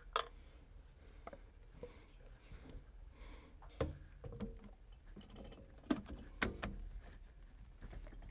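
A few scattered sharp plastic clicks and knocks as primed and cemented PVC vent fittings are handled and pushed together by hand, with quiet between them.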